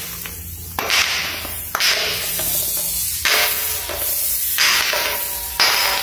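Glass bottle of liquid tumbling down marble stairs, striking a step roughly once a second, each knock followed by a splashing hiss as the liquid spills out.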